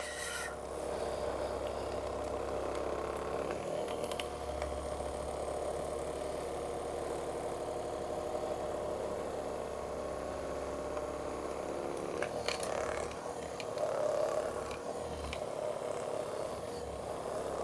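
Handheld percussion massage gun running steadily, its motor buzzing as the head is worked against a person's shoulder and upper back.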